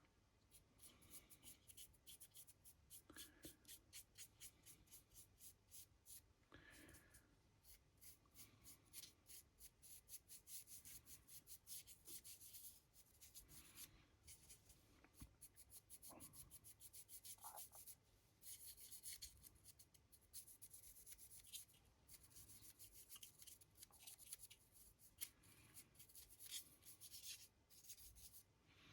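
Paintbrush scratching and dabbing paint onto a resin 3D-printed model in a long run of quick, faint strokes, several a second.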